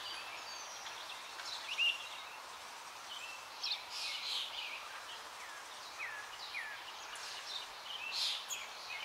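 Birds chirping: scattered short, high calls and a few quick falling notes over a faint steady hiss of outdoor background noise.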